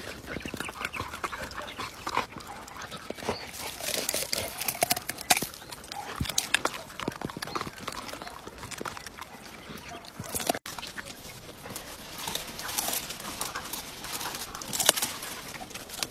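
A dog chewing and crunching vegetables, with irregular crisp crunches and clicks throughout.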